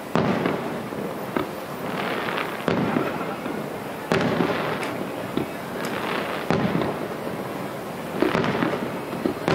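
Aerial firework shells bursting in a steady series, roughly one every one to two seconds, each bang trailing off in a long echo.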